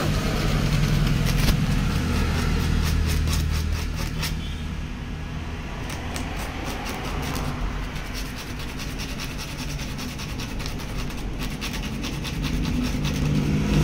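Emery paper scraping in short, irregular strokes on the contact points of a Roots electric horn, cleaning them before tuning. A steady low vehicle rumble runs underneath.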